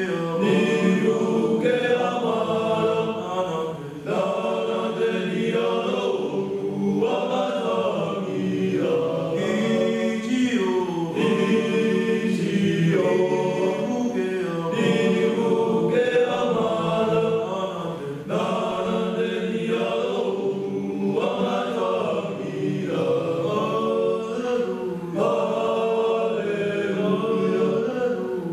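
Pasifika boys' choir singing unaccompanied in several voice parts, in long sustained phrases with brief breaks about four seconds and eighteen seconds in.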